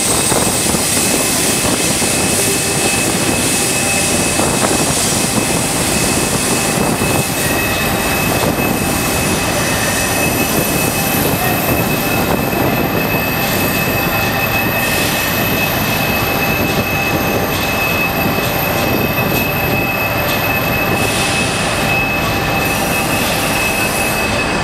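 Passenger train rolling slowly past on the curved track, with a loud steady rumble of wheels on rails and a thin, continuous, high-pitched squeal of wheel flanges grinding against the rails through the curve.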